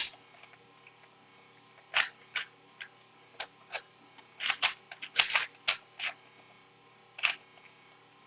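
V-Cube 2 2x2x2 puzzle cube being twisted by hand: the layer turns make sharp plastic clicks, singly and in quick clusters of two or three. They start about two seconds in and come irregularly, about a dozen in all.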